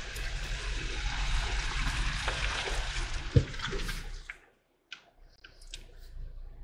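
Dacia Duster SUV driving through wet mud: steady tyre and splash noise over a low engine rumble. It cuts off abruptly about four seconds in, followed by a few faint clicks.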